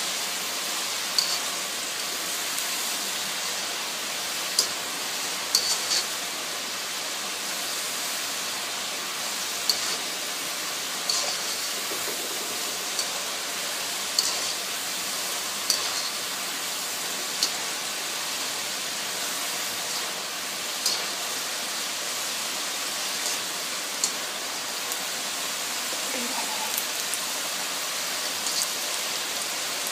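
Potato fries sizzling steadily in hot oil in a wok during their second fry, as they start to brown, with short crackling pops every second or two.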